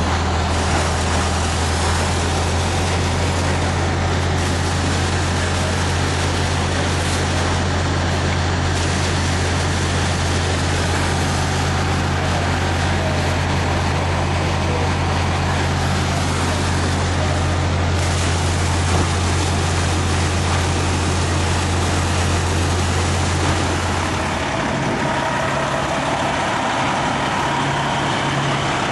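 Fire trucks' diesel engines running steadily, a low hum under a constant rushing noise. About 24 seconds in, the low hum drops away and a somewhat higher one takes over.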